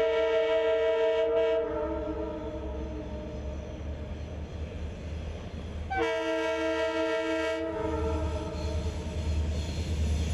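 Diesel freight locomotive's air horn sounding its road-crossing warning, several notes at once in a chord: one long blast cuts off about a second and a half in, and a second blast of about a second and a half comes about six seconds in. Under it the locomotive's low engine rumble grows louder as the train approaches.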